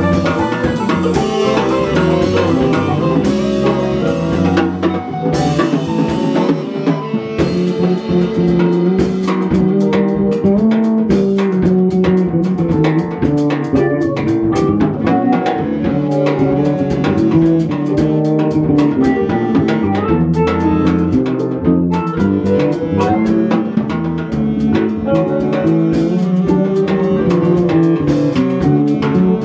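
Small live band playing instrumental music: electric guitar, bass guitar and drum kit together, with steady drum and cymbal hits throughout.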